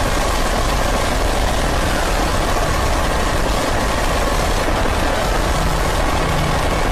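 Loud, steady rumbling noise drone, dense and unchanging, with no tune or rhythm.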